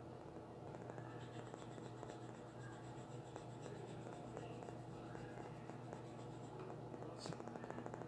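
Colored pencil scratching on paper in a steady run of quick, short shading strokes, with a sharp tick about seven seconds in. A faint steady hum sits underneath.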